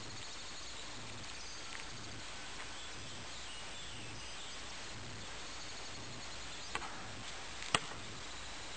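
Two sharp knocks about a second apart near the end, the second louder: a basketball striking hard. Underneath, a steady outdoor hiss with faint bird chirps.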